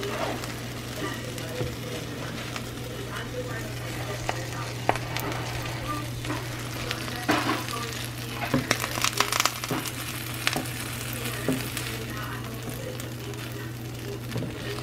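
A sandwich frying in a nonstick pan, sizzling and crackling steadily over a low hum. A burst of sharp clicks and scrapes comes from the spatula against the pan around the middle.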